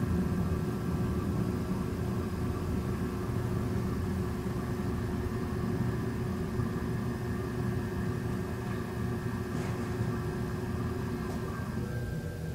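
A steady low machine hum with a few constant tones, like a motor running. Its tones shift slightly near the end.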